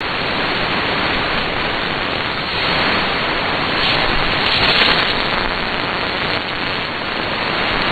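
Shortwave radio static and hiss on 9940 kHz, heard through an SDR receiver's narrow AM filter, swelling and easing slightly in strength, with no programme audio yet audible above the noise.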